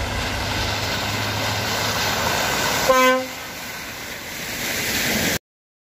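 Volvo log truck running as it moves, with one short horn blast about three seconds in. The sound is quieter after the blast, builds again, then stops abruptly.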